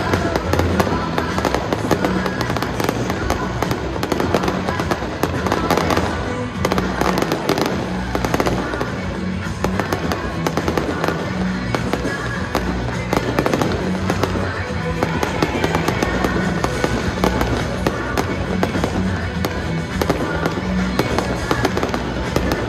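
Fireworks display: many rockets and comets launching and bursting in rapid succession, a continuous stream of pops and crackles, with music playing underneath.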